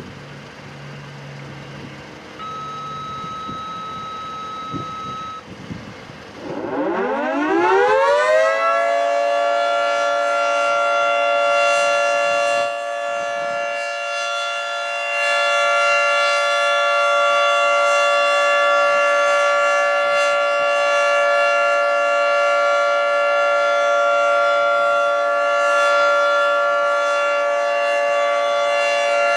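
Federal Signal 3T22A three-tone rotating outdoor warning siren winding up from a low growl to full pitch over about two seconds, about six seconds in, then holding a steady chord on the Alert signal. Its loudness dips for a few seconds partway through and comes back as the rotating head turns.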